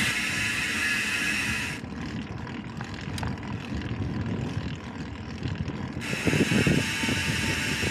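Wind buffeting a small action camera's microphone during a bike ride, a steady rumbling rush with tyre noise under it. A higher hiss drops away about two seconds in and comes back about six seconds in.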